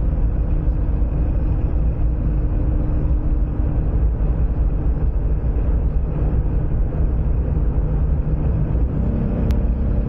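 Steady cabin noise from inside a Jeep towing a travel trailer at highway speed: a low rumble of engine and tyres on the road. A faint click sounds near the end.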